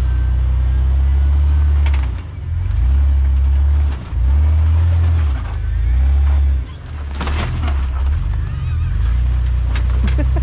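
Jeep TJ's engine running at low revs as it crawls over a stump and rocks, the note swelling and easing several times as throttle comes on and off. A brief sharp clatter about seven seconds in.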